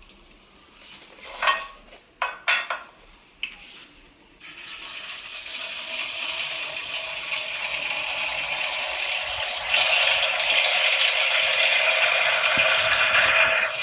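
A few clinks and knocks of cups and kitchenware, then a steady stream of water rushing for about nine seconds. It grows louder partway through and stops suddenly near the end.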